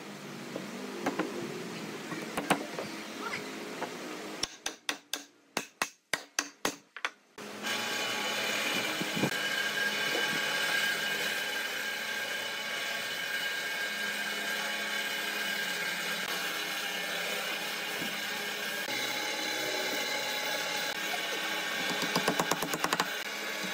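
Workshop sounds: a run of sharp knocks, then a steady hum with a high whine through most of the time, and quick hammer taps near the end as wooden dowels are driven into a timber beam.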